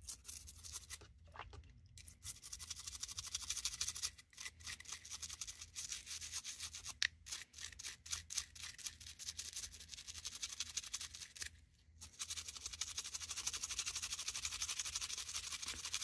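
Toothbrush bristles scrubbing a wet Victorinox Tinker Swiss Army knife's tools in soapy water, in fast, steady back-and-forth strokes. The scrubbing starts about two seconds in and has a short break about three-quarters of the way through.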